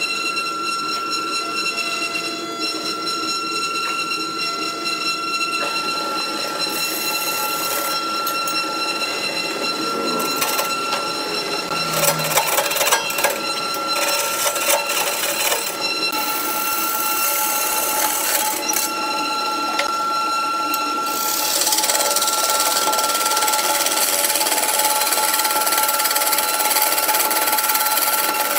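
Wood lathe running with a steady motor whine as a large log spins, a hand tool scraping and cutting the wood. A run of knocks comes around the middle, and the cutting grows louder and hissier about three quarters of the way through.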